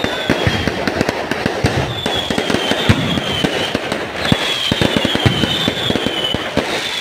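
Fireworks display: a dense run of cracks, pops and crackling from aerial shells bursting, with a high thin whistle that dips slightly in pitch, heard several times.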